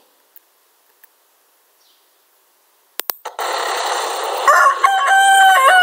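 Near silence, then a click and a steady outdoor hiss, and about four and a half seconds in a rooster starts crowing, one long call that steps in pitch.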